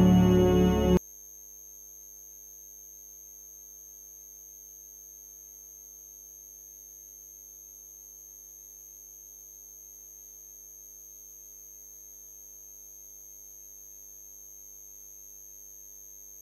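Organ-like music that cuts off suddenly about a second in, followed by a faint steady hum made of a few fixed low tones and a thin high whine.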